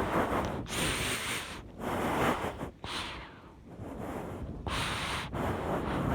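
Heavy, out-of-breath breathing right at the microphone, about one breath a second, with wind noise over it. It eases for a moment midway.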